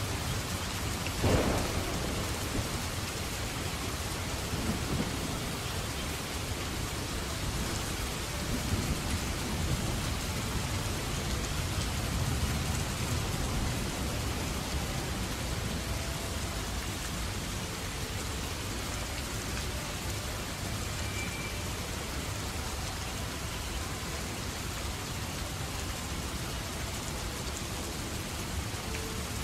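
Steady rain falling, with a sharp loud hit about a second in and low rumbling swells a few seconds later and again in the middle.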